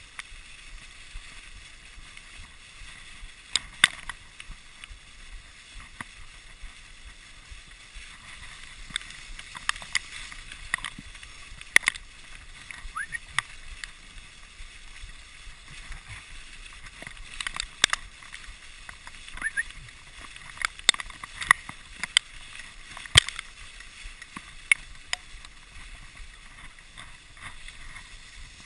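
Dog sled gliding over packed snow: a steady hiss from the runners, with scattered sharp clicks and knocks from the sled.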